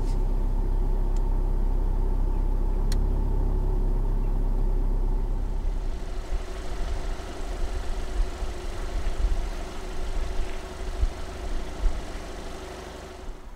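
Skoda Superb's 2.0 TDI four-cylinder turbodiesel running at low revs with a steady low hum. About halfway through it turns quieter and more uneven. There is a single faint click about three seconds in.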